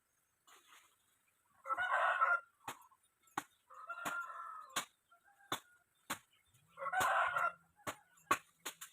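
Chicken calls, three of them, each under a second long, over a series of sharp knocks that come roughly every half-second to second.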